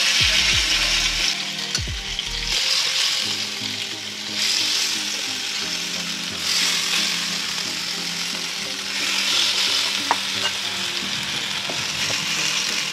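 Marinated fish steaks sizzling loudly in hot mustard oil in a frying pan. The sizzle surges each time another piece is laid in, about five times.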